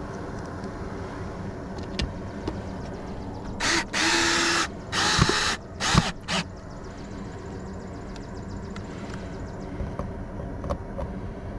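Power drill run in several short bursts, about four to six seconds in, over a steady background hum.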